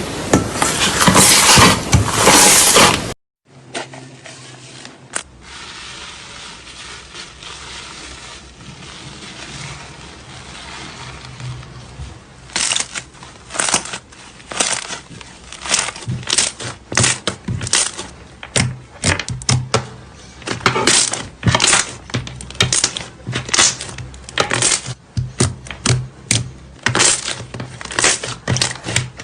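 Slime being squeezed and stretched by hand. A loud stretch of handling noise stops abruptly about three seconds in, and softer squishing follows. From about halfway on there is a run of crisp pops and crackles, several a second.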